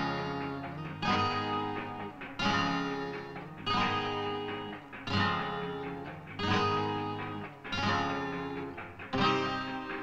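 Music: strummed guitar chords in a slow, even series, roughly one every second and a quarter, each struck sharply and left to ring out and fade.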